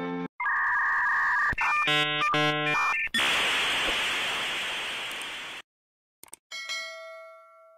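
A string of edited-in sound effects: a held electronic beep, a short run of electronic notes, then a loud hiss that fades away over a couple of seconds. After a short silence and a couple of clicks, a bell-like ding rings out and dies away near the end.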